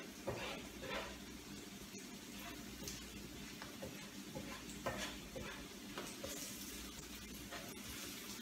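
Onions sizzling in frying oil in a pan, being browned as the base for a gravy. A spoon stirs and scrapes across the pan bottom now and then, loosening the browned bits.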